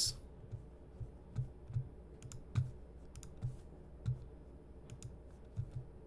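Irregular clicking of a computer keyboard, about a dozen separate taps, some with a soft low thud.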